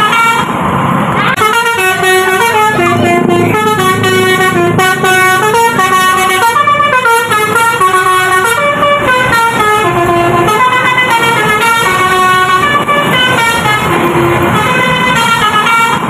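Basuri telolet bus horn, a multi-tone horn, playing a quick melody of short stepped notes, with a low rumble underneath.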